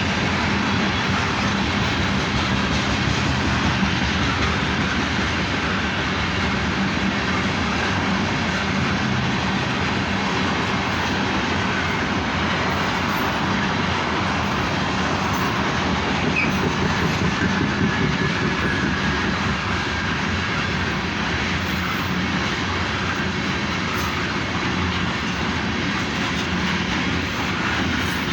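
Loaded coal train rolling past: a steady, unbroken roar of freight cars' steel wheels on the rails.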